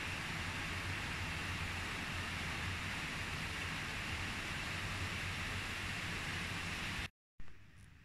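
Steady hiss of rain falling. It cuts off suddenly about seven seconds in, leaving a much quieter hush.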